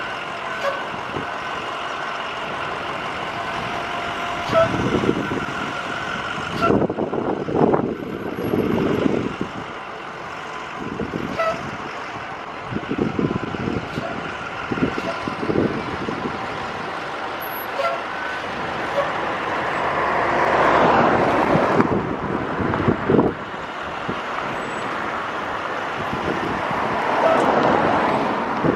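School buses' diesel engines running as the buses pull out and turn onto the street, a steady hum with surges of engine noise, and cars passing by, the loudest swells about two-thirds of the way through and near the end.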